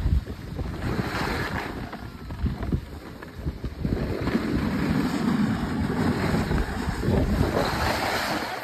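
Wind buffeting the microphone and skis scraping over snow during a downhill run: a loud rushing noise that swells and eases.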